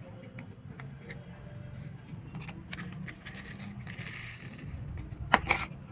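Small plastic toy car being handled: light clicks, a brief scraping about four seconds in, then two sharp plastic clicks a moment apart just after five seconds as its plastic body is worked in the hands.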